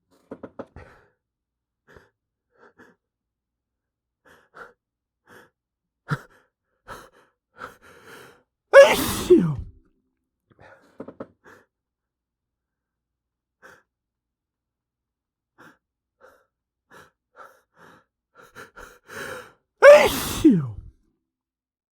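A man sneezing loudly twice, about eleven seconds apart, each a sharp burst falling in pitch. Faint short breaths and gasps come in between, quickening just before the second sneeze.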